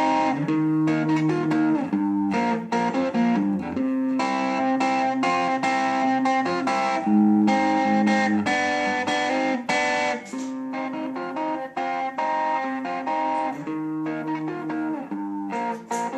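Guitar being played: a continuous run of plucked notes and chords.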